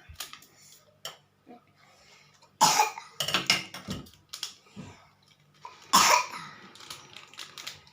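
A young child coughing: a fit of several harsh coughs a little over two seconds in, and another cough near six seconds in, the cough of a child with a cold.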